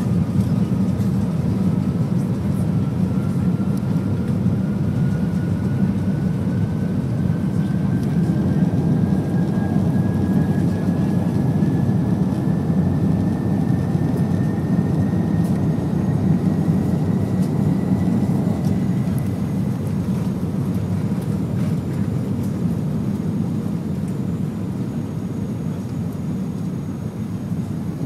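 Jet airliner cabin noise during takeoff: a loud, steady rumble of engines and rushing air. A faint whine rises slowly in pitch over the first twenty seconds.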